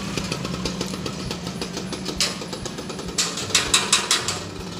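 Metal phone-plug connector parts clicking and rattling together in the hands, one click about two seconds in and a quick run of clinks near the end, over a steady low mechanical hum.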